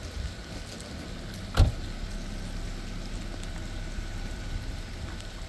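Vehicle engine running with a steady low rumble, with one heavy thump about a second and a half in.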